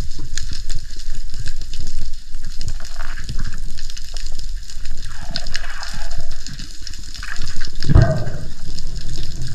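Water sloshing and bubbling around the microphone, with a steady crackle of small clicks and a louder rush about eight seconds in.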